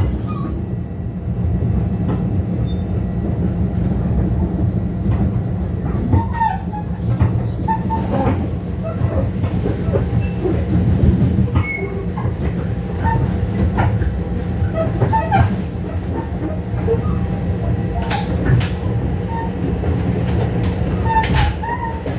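Long Island Rail Road commuter train running, heard from inside the car: a steady low rumble of wheels on rail, with scattered clicks and knocks from the track and brief faint wheel squeaks.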